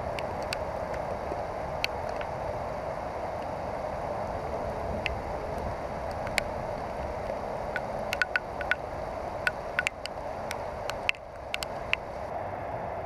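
Steady hiss of rain falling on a creek, with scattered sharp ticks that come more often in the second half.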